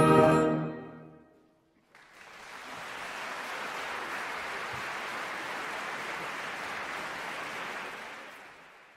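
Concert wind band's final chord ringing out and dying away, then about a second of silence before audience applause starts suddenly. The applause holds steady and fades out near the end.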